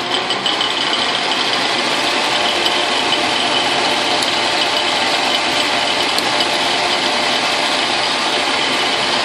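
Logan lathe running, its spindle turning an end mill held in the collet to mill a tool-post nut block clamped on the compound, with the carriage on slow automatic feed. Steady mechanical running with a few faint ticks.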